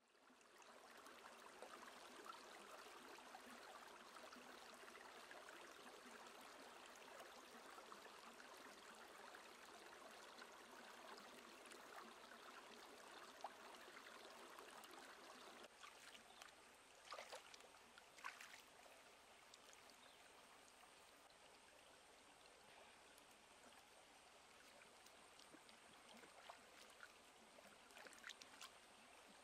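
Faint, steady rushing of a shallow stream running over rocks. After about halfway, a few brief splashes come from hands rinsing vegetables in the water.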